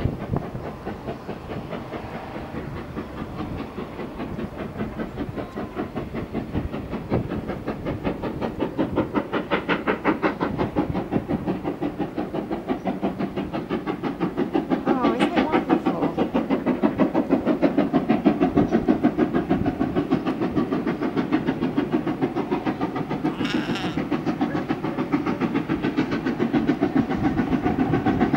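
Steam locomotive hauling a passenger train away from a station, its exhaust chuffing in a rapid, even beat that grows louder over the second half as the engine draws nearer.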